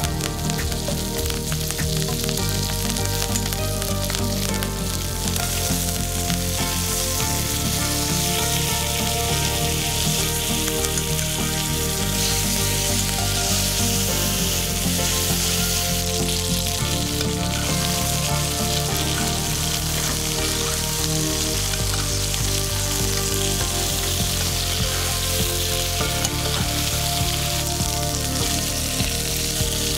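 Chicken thighs searing skin-down in hot olive oil in a frying pan: a steady, even sizzle. Soft background music with slow-changing low notes plays under it.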